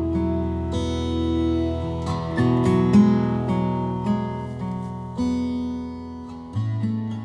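Background music: strummed acoustic guitar chords, changing about every second or two.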